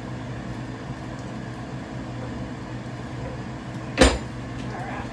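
A metal stove burner grate set down on a gas range with one loud clank about four seconds in, over the steady hum of an air fryer's fan.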